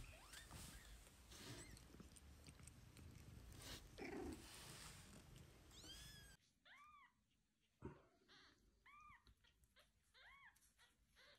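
A cat meowing faintly three times in the second half: short calls that rise and fall in pitch, about a second and a half apart. Before that there is only faint shuffling and room noise.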